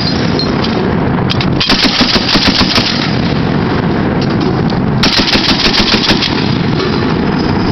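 .50-caliber heavy machine gun firing two bursts of about a second each, roughly nine rounds a second, over a continuous loud din of firing.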